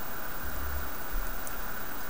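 Steady background hiss, with a short dull low bump about half a second in and two faint tiny clicks after the midpoint.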